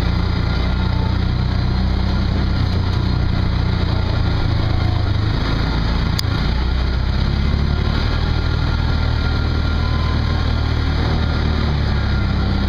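Off-road vehicle's engine running at a fairly even speed while driving along a dirt trail, its pitch shifting slightly now and then.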